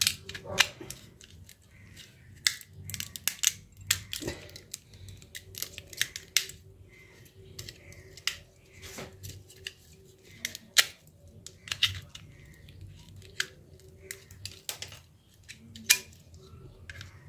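Irregular sharp plastic clicks and snaps as small parts of a Nokia 1209 phone's housing are handled during its disassembly.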